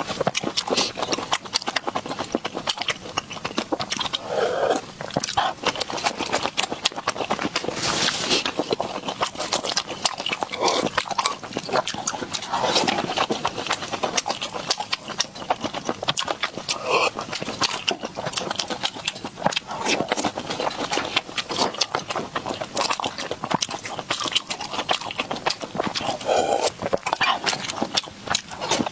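Close-miked eating of large field snails: a continuous run of wet mouth clicks from chewing and smacking, with a few short, louder sucking sounds.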